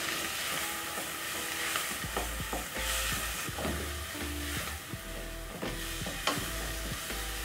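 Chopped onion and coriander stems sizzling in hot oil in a non-stick pot while a wooden spoon stirs and scrapes through them. Soft background music with a bass line comes in about two seconds in.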